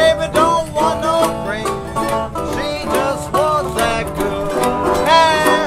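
Old-time string band playing: a bowed fiddle carries the melody with slides and vibrato over a strummed guitar and the scraped, tapped rhythm of a washboard.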